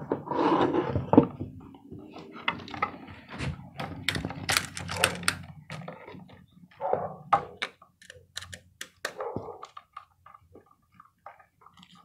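Close handling of a plastic dimmer switch and its wiring: a run of small irregular clicks, taps and scrapes as a wire is fitted to its screw terminal and the switch is turned in the hands.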